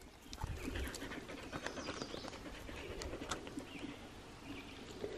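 Australian cattle dog panting faintly, warm and winded from a game of fetch.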